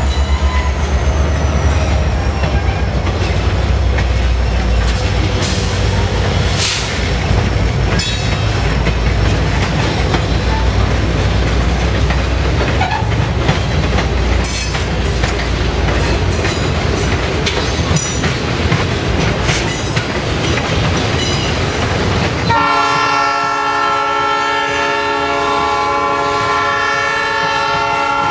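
Norfolk Southern diesel freight train passing close by: heavy rumble of the locomotives and rolling freight cars, with wheels clicking over the rail and a brief wheel screech about seven seconds in. About 22 seconds in, a diesel locomotive horn starts sounding one long steady chord that holds on.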